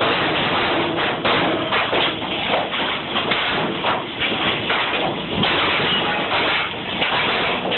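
Background music with a busy, percussive rhythm of many sharp taps.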